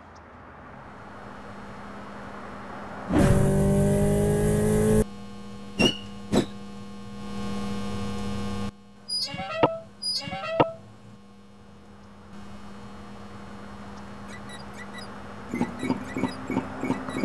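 Steady electrical hum, broken about three seconds in by a loud buzz lasting about two seconds. Then come two sharp clicks, a cluster of short chirps midway, and a run of quick ticks near the end.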